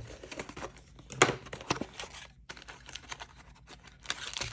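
Plastic trading-card pack packaging crinkling and clicking as it is handled and worked open, with a sharper snap about a second in and a denser crinkle near the end.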